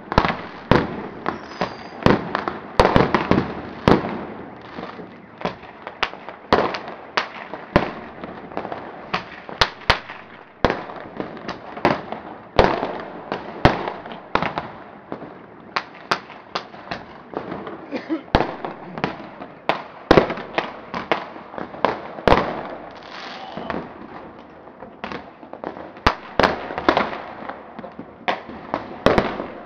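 Many fireworks and firecrackers going off together: a dense, unbroken run of sharp bangs and cracks at irregular intervals, often several a second.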